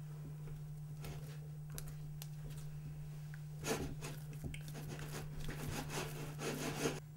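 A utensil stirring and scraping thickening bioplastic mix in a pan, in irregular rubbing strokes that grow louder from about halfway and stop abruptly near the end. A steady low hum runs underneath.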